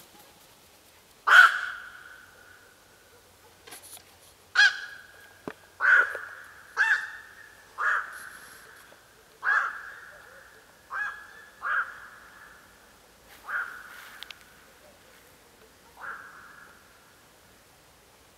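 Black-crowned night heron calling repeatedly: about ten short, abrupt calls of steady pitch, each with a sharp start and a fading tail, spaced one to two and a half seconds apart.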